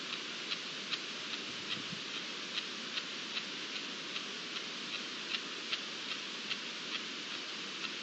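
Field ambience: a steady hiss with a regular high-pitched ticking, about two to three ticks a second.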